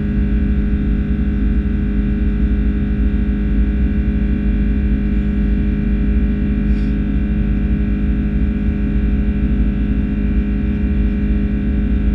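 Steady drone of an Airbus A330-300's Rolls-Royce Trent 700 jet engines heard inside the passenger cabin: a deep rumble with a low hum, holding at an even level.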